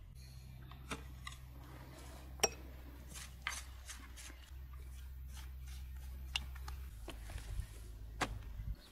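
Light clicks and clinks of a knife against a metal platter as a stack of thin qutab flatbreads is cut, scattered irregularly with one sharper click about two and a half seconds in; a low steady hum runs underneath.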